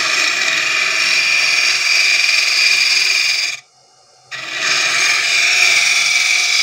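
Homemade hollowing tool cutting heavily into the end grain of a palm-wood blank spinning on a wood lathe: a loud, steady scraping hiss of wood being torn away. The cut breaks off for under a second a little past halfway, then resumes.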